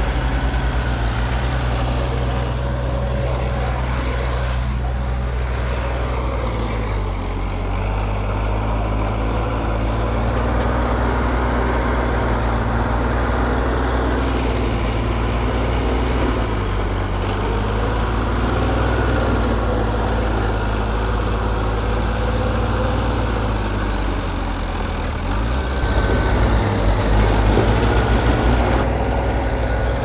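Heavy diesel engine of earthmoving machinery running under varying load. Its pitch dips and recovers several times, then rises and gets louder near the end.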